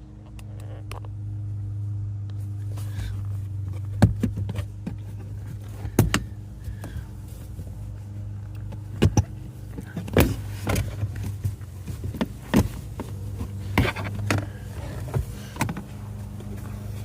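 A steady low hum with a string of sharp clicks and knocks scattered through it, several close together in the second half.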